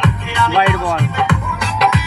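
Background music with a steady hip-hop-style beat of deep bass kicks, about two a second, under a vocal melody line.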